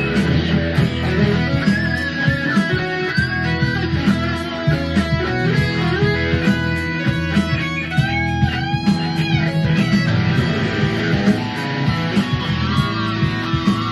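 Westfield E1000 ST Strat-style electric guitar played through an amp on its bridge pickup: a melodic lead tune with bent notes, over a backing with a steady beat.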